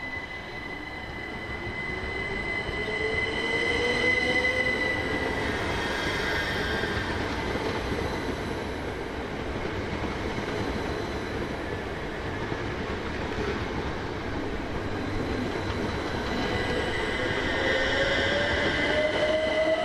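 Class 379 Electrostar electric multiple unit pulling away and accelerating past, its traction motors whining in a rising pitch over the running noise of wheels on rail, with a steady high whine above. The motor whine climbs over the first few seconds, settles, then climbs again near the end as the sound grows louder.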